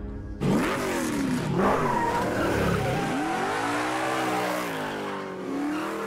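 Car engine revving hard as a car accelerates away, starting suddenly about half a second in, its pitch climbing and dropping back several times as it pulls through the gears.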